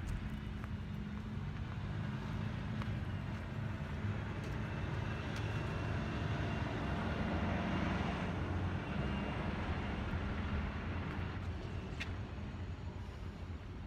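Bus engine and road noise during a ride: a low steady engine rumble under road noise, building to its loudest around the middle and then easing off, with a few light clicks and rattles.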